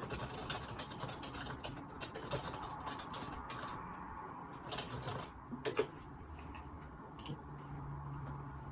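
Computer keyboard typing: runs of key clicks, thickest in the first half, with the loudest pair of clicks a little past the middle, picked up by a phone microphone.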